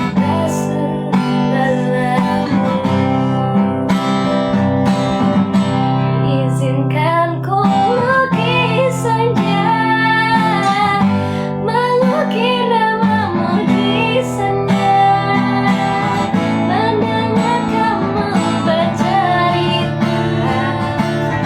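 Acoustic guitar strummed in steady chords, with a woman's singing voice carrying a wavering melody over it, clearest from about seven seconds in.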